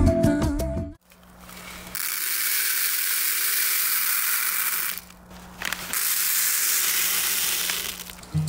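Silica gel beads poured in a stream onto a heap of beads in a container, making a steady rattling hiss. There are two pours of about three seconds each, with a short break about five seconds in.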